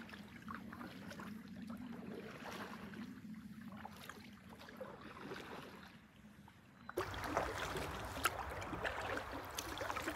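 Canoe paddling: faint, distant paddle strokes and splashes over a low steady hum of highway traffic, then about seven seconds in, close-up paddle strokes with water splashing, dripping and lapping against the hull.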